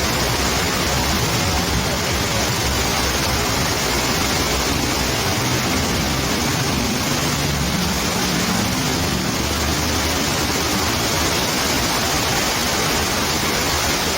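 Heavy thunderstorm rain pouring down, with rainwater streaming over an old tree trunk: a steady, dense hiss.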